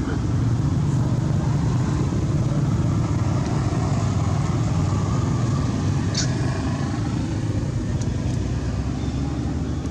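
Steady low engine rumble of a motor vehicle, swelling and then easing off, with one brief sharp click about six seconds in.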